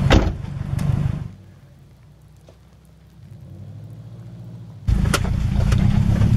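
Cabin noise of a Subaru Forester XT crawling over a rocky trail: a low rumble from its turbocharged flat-four engine and tyres, with sharp knocks over the stones. About a second in, the sound drops to a faint, distant engine hum that swells slightly. The loud cabin rumble and knocks cut back in abruptly near the end.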